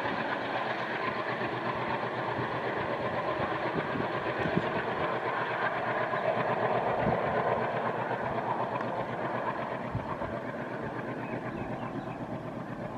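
ALCo WDM-3A diesel locomotive's turbocharged V16 engine working under power after notching up, a rhythmic, throbbing chug that fades in the last few seconds as the train moves away.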